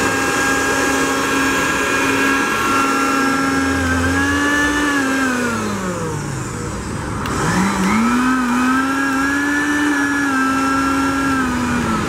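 Arno blender motor running with no jar on it, a steady high whine, its safety interlock switch held down with a screwdriver. About halfway through it winds down, starts again with a rising whine a second or so later, and winds down again at the end. The motor itself is running perfectly.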